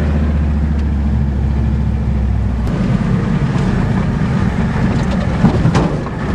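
Ford diesel truck engine running with a steady low drone. About three seconds in, the drone gives way to a rougher, noisier sound as the truck drives on, with a few knocks near the end.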